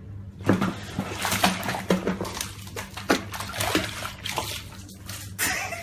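Water splashing and sloshing in a filled bathtub as a cat thrashes in it, with irregular splashes from about half a second in, over a steady low hum.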